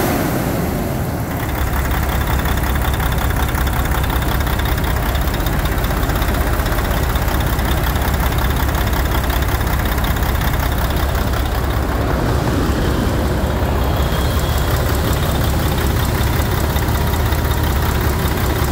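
PACCAR MX13 12.9-litre six-cylinder turbo diesel running, settling about a second in into a steady low idle.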